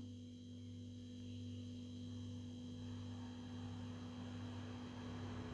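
Faint sizzling of hot oil frying peanuts, dried red chillies, curry leaves and garlic in a pan, growing slowly from about halfway through, over a steady electrical hum.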